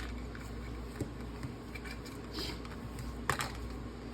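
Light handling of a toy and its plastic accessories: a few soft clicks and taps, the sharpest about three seconds in, with a brief soft rustle in between.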